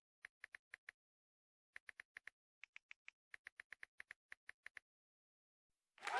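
Quiet, short electronic blips in quick runs of four to seven, with short gaps between runs: a text-typing sound effect. A loud burst of crowd cheering and applause starts at the very end.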